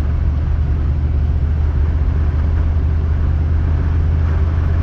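Steady low drone of a pickup truck driving on a snowy highway, engine and road noise heard from inside the cab.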